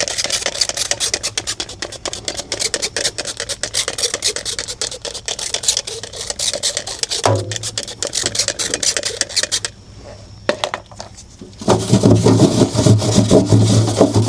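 Rapid back-and-forth scrubbing of a refrigerator's surface, about ten strokes a second, pausing briefly; a louder, lower rubbing noise takes over near the end.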